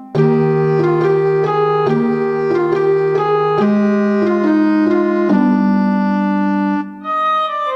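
Background music on a keyboard: sustained organ-like chords under a slowly stepping melody, broken off about seven seconds in as a different piece begins.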